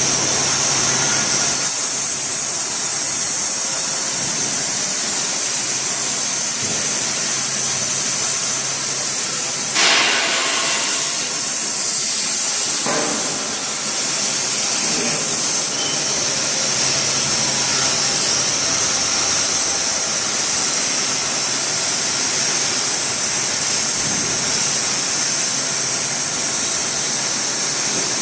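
Semi-automatic sawmill with an 11 kW electric main motor running, giving a steady high hiss. There is a sharp knock about ten seconds in and a weaker one about three seconds after it.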